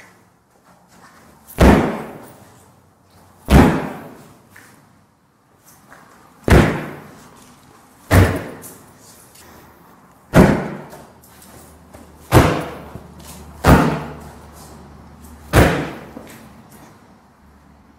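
A boot kicking hard against a front door fitted with kick-in reinforcement hardware: eight heavy thuds a second or two apart, each ringing out briefly. The door holds and does not splinter or give way.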